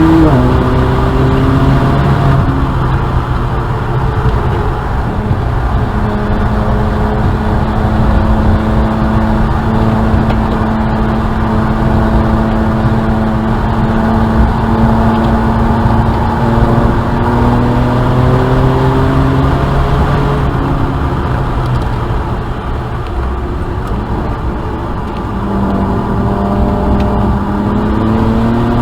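BMW 335i's N54 twin-turbo straight-six running hard at speed. The engine note climbs and falls several times with gear changes and lifts, over loud road and wind noise.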